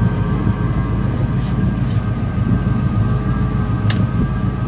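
Jet boat engine running steadily: a low rumble with a faint steady whine above it and a couple of light ticks.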